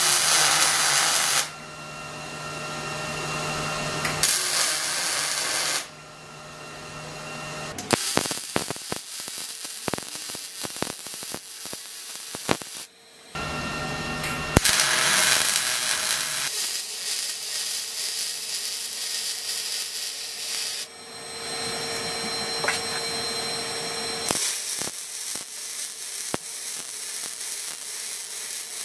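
Electric arc welding on steel trailer-frame tubing: the arc crackles and hisses in several separate welding runs, each starting and stopping abruptly.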